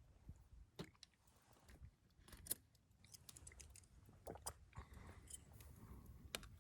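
Faint, scattered clicks and light ticks, the sharpest about two and a half seconds in, over near silence.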